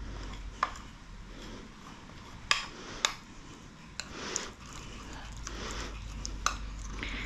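A small metal tool stirring and scraping thick gouache paste around a ceramic bowl, the paste squishing softly. Several sharp clicks, about five, come where the metal knocks against the bowl.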